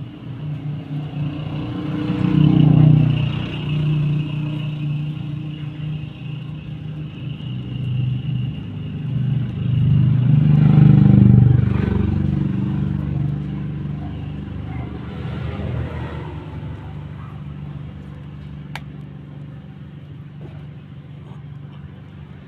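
Carbureted Toyota 4K four-cylinder engine in a jeep, running after its ignition coil supply was rewired to cure a no-start. It is revved up twice, about two seconds in and again about ten seconds in, then settles back to a steady idle.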